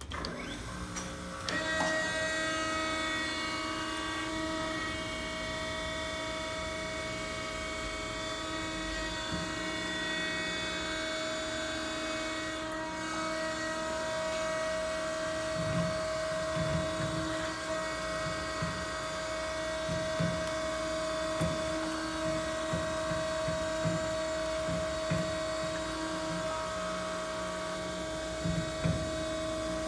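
Harig 618 hydraulic surface grinder switched on about a second and a half in, its spindle motor and hydraulic unit then running with a steady hum and whine. From about halfway, low knocks come every second or so.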